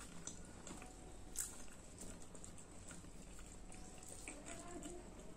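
Close-miked eating sounds: chewing and soft wet mouth noises, with faint crackles as a puffed, fried bhatura is torn by hand and one sharp click about a second and a half in.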